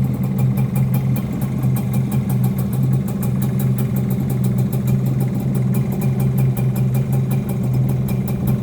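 Suzuki AX100's single-cylinder two-stroke engine idling steadily, completely stock and new from the dealer.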